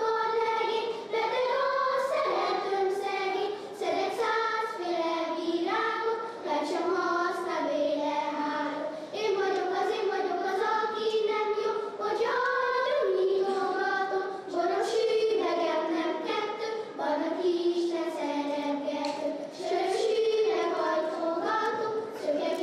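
Children singing a folk song unaccompanied: a single melody line of held, sung notes that steps up and down in pitch.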